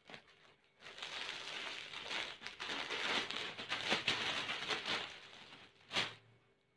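Plastic courier mailer bag crinkling and rustling as it is handled and opened, with one sharper crinkle near the end.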